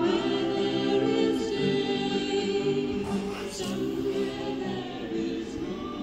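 Music with a choir singing held notes that shift in pitch every half-second or so.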